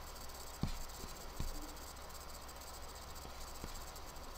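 Steady background hiss and low hum of room tone, with a high thin whine, broken by three faint clicks.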